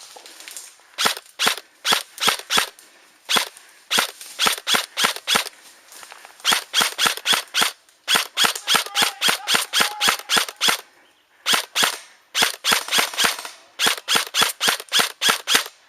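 Airsoft gun firing rapid single shots in strings of several, about three to four a second, with short pauses between strings, until the magazine runs empty.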